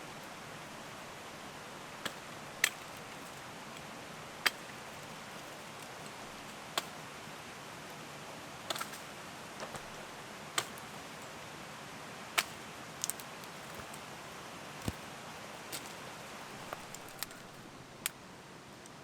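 Steady rush of a river, with a dozen or so short sharp snaps or clicks scattered through it a second or two apart. The rush drops a little near the end.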